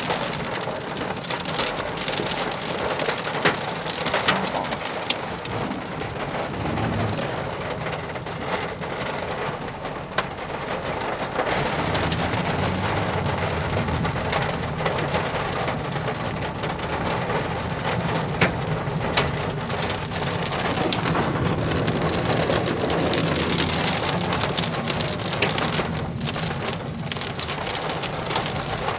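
Heavy rain and hail pelting a car's windshield and roof, heard from inside the cabin as a dense hiss scattered with sharp strikes. The engine and tyre rumble grows louder about twelve seconds in.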